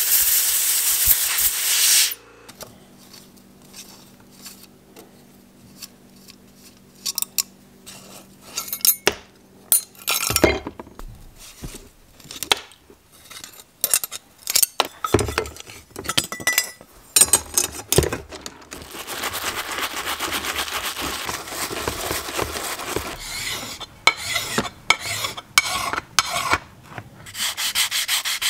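Hands-on work on bicycle crankset parts: a short, loud hiss at the start, then scattered clicks and metal knocks as an Allen key turns the chainring bolts. From about two-thirds in comes a steady rubbing of a sanding sponge on an aluminium crank arm.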